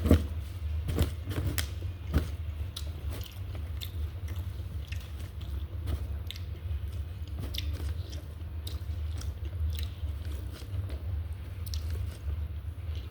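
Close-miked mouth sounds of a person eating nasi padang: steady chewing with many small wet clicks and crunches, the sharpest in the first couple of seconds. A steady low hum runs underneath.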